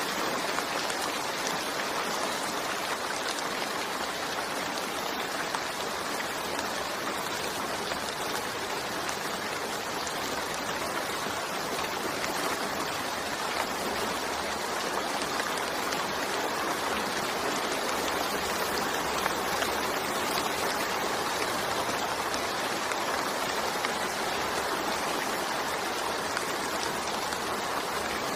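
Steady rainfall: a constant, even hiss of many drops, without let-up or change.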